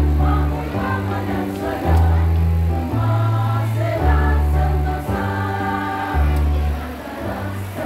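Women's choir singing in parts, accompanied by an electronic keyboard playing low bass notes that change about once a second.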